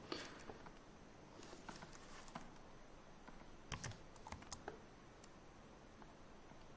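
Faint computer keyboard clicks: a few scattered keystrokes at an irregular pace.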